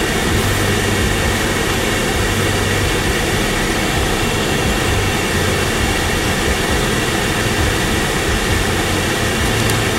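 Steady rushing noise with a low hum inside a car's cabin, unchanging throughout.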